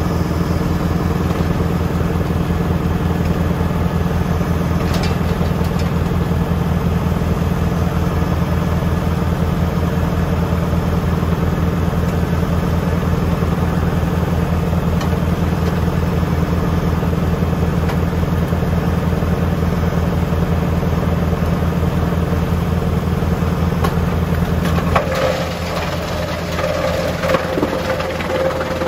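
Tractor engine running steadily with an even, low engine rhythm, driving the wood chipper. About 25 seconds in the low engine note drops and a few knocks and a steady higher tone come in.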